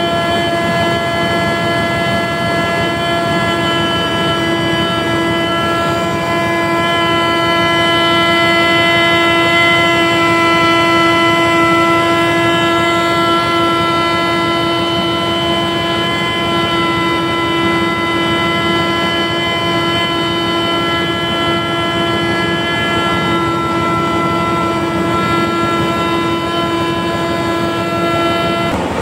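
Portable crankshaft grinding machine running on a crankpin of a MAN 6L32/40 marine diesel, giving a steady whine of several high tones over a low rumble.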